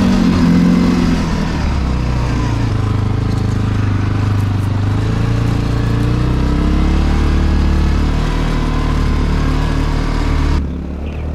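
CFMoto CForce 450L ATV's single-cylinder engine running under way, its pitch dropping about a second and a half in and then holding steady. The engine sound cuts off suddenly near the end.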